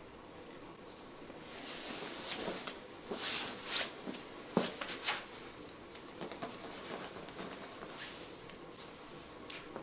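Rustling and handling noises from clothing and bodies shifting during an assisted massage stretch, loudest in the middle, with one sharp click about four and a half seconds in.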